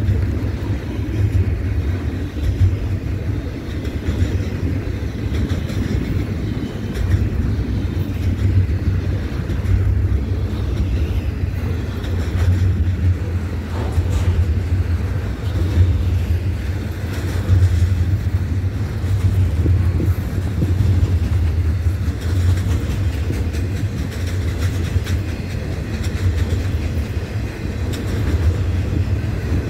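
Double-stack intermodal well cars rolling past, a steady low rumble of steel wheels on rail with occasional faint clicks.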